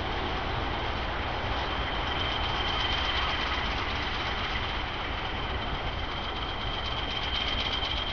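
PKP class SM31 diesel shunting locomotive running light and drawing away, its engine giving a steady low rumble, with a constant high-pitched whine over it.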